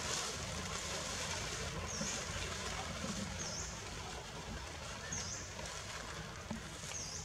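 Forest ambience: a steady background hiss, with a short high chirp repeated four times, about every second and a half.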